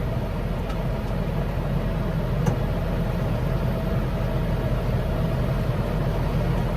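Tractor engine idling steadily, with one faint click about two and a half seconds in.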